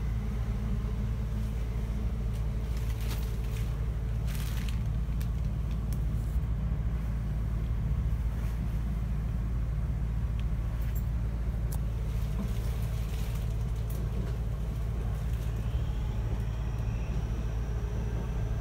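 A Class 465 electric multiple unit running, heard from inside the carriage: a steady low rumble from wheels and track, with a few sharp clicks and knocks scattered through it. A faint high whine rises near the end.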